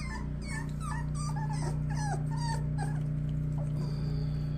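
Four-week-old cockapoo puppies whimpering with many short, high squeaks as they eat raw ground beef, the cries thinning out after about two and a half seconds. A steady low hum runs underneath.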